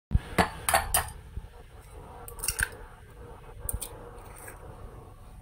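An egg tapped sharply about four times against the rim of a glass bowl within the first second to crack it, then a few smaller crackles as the shell is pried apart.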